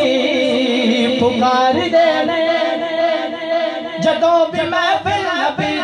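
A man singing a Punjabi naat (devotional song to the Prophet) unaccompanied through a microphone, drawing out a long ornamented line with a wavering pitch.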